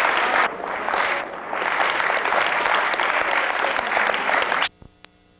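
Theatre audience applauding, a dense clatter of many hands clapping that dips briefly twice and then cuts off abruptly near the end.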